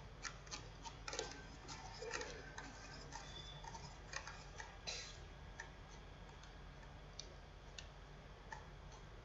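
Faint, irregular ticking of a computer mouse scroll wheel, several clicks a second at first and sparser later, as a document is scrolled.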